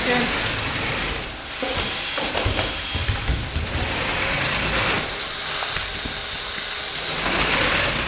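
An FRC competition robot's motors and mechanisms running, a steady mechanical whir and rattle, with a few sharp knocks about two seconds in.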